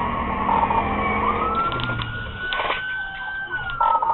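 Police car siren wailing: its pitch falls, rises again over about a second, holds, and starts falling near the end, over steady road noise, with a few short crackles in the middle.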